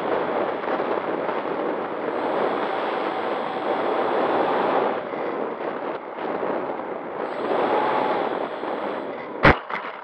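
Steady rushing wind and propeller noise on an RC model plane's onboard camera in flight, with a single sharp knock about nine and a half seconds in.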